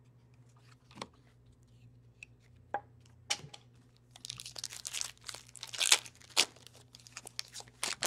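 A few light clicks, then a trading-card pack wrapper being torn open and crinkled, a dense crackling that starts about halfway through.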